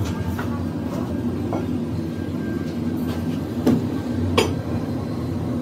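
A steady low mechanical hum, with a few sharp metallic clinks from work on the tire press; the loudest two come about three and a half and four and a half seconds in.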